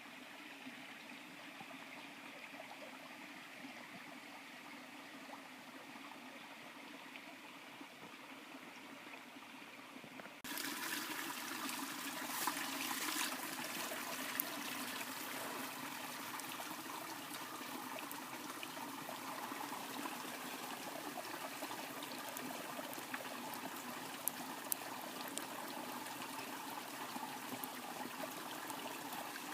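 Steady rush of running water, which turns suddenly louder and brighter about ten seconds in, with a few sharp clicks later on.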